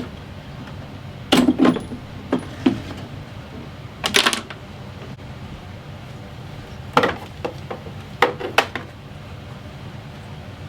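Metal tools and parts clinking and clanking a few times, short separate knocks while a motorcycle is being taken apart.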